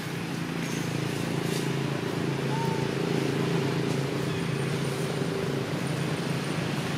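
A motor running at a steady low hum, with one faint short chirp about two and a half seconds in.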